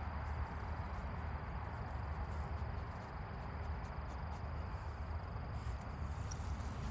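Steady outdoor ambience of crickets trilling faintly, over a low rumble and the rustle of someone walking through grass.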